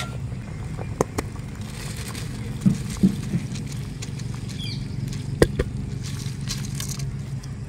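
Soaked basmati rice tipped into a pot of boiling biryani stock: grains pattering and hissing into the liquid over the steady low rumble of the boil. There are a few sharp knocks, the loudest about five seconds in.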